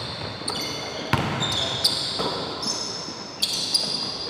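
Basketball being played on a gym court: sneakers squeaking sharply on the floor, many short high-pitched squeaks, with the ball bouncing in a few sharp knocks.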